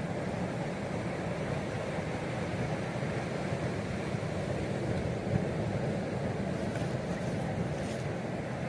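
Steady rushing of wind on the microphone mixed with the sea's surf breaking on the beach.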